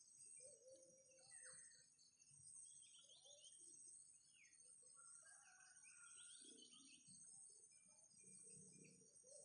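Faint, scattered bird chirps, short and irregular, over a steady high-pitched hiss.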